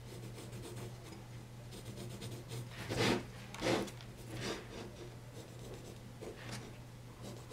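Pencil scratching on a wooden carving blank as guide lines are drawn: a few short strokes, the loudest about three seconds in and another just after, over a steady low hum.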